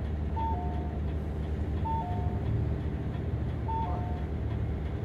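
Hino QPG-KV290Q1 city bus idling at a stop with its door open. A falling two-note chime repeats three times, about every one and a half to two seconds, over the steady low hum of the engine.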